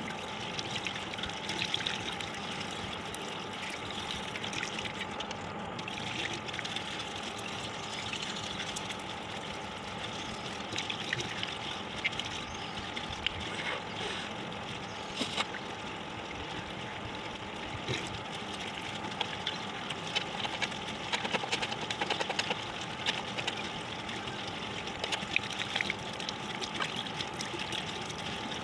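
Water trickling and running steadily, with small splashes and ticks throughout.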